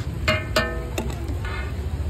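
Metal spatula clanging against an iron tawa: three or four ringing metallic strikes in the first second and a half, over a steady low hum.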